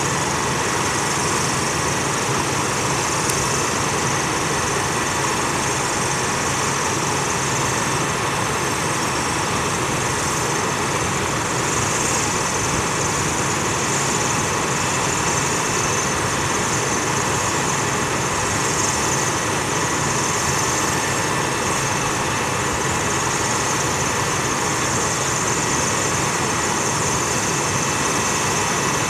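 Engine of the hydraulic power unit running steadily, driving the rail puller that draws the cut rail ends together.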